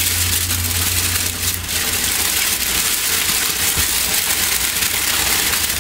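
Steady rushing noise of passing road traffic, with a low hum underneath.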